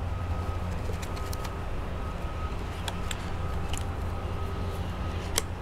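Steady low background rumble with scattered faint clicks and taps as a cut plastic water-jug camera cage and its rubber bands are handled.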